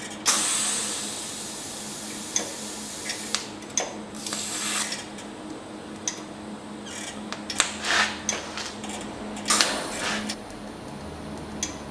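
TIG welding arc on steel, starting suddenly with a hiss near the beginning, then buzzing with irregular surges and crackles as filler rod is added in dots to build a knob onto the end of a broken, rust-seized bolt.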